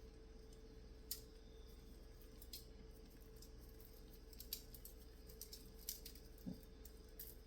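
Near silence with a few faint, scattered light clicks and taps of kitchen handling over a faint steady hum.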